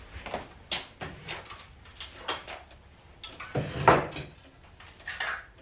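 Kitchen clatter: a string of separate knocks and clicks as things are handled on a kitchen counter, with a louder thump about four seconds in.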